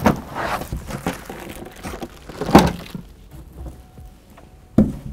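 A plastic-wrapped plastic bucket being lifted out of a cardboard box and set on a table: the plastic wrap and cardboard rustle, with a few thuds. The loudest thud comes about two and a half seconds in, and a sharper one comes near the end.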